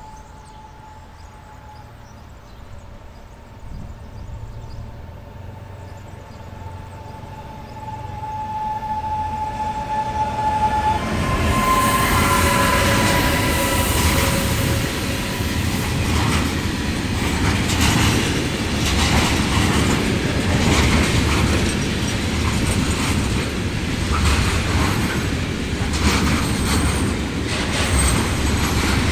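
A freight train of tank wagons approaches and passes close by. First comes a steady high whine that grows louder. About eleven seconds in the train arrives and the sound turns into a loud rumble, and the rhythmic clickety-clack of wagon wheels over the rail joints runs through the rest.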